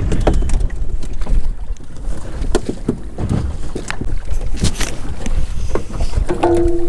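Wind buffeting the microphone in a low rumble, with scattered sharp knocks and clatter on an aluminium jon boat. A short steady tone comes in near the end.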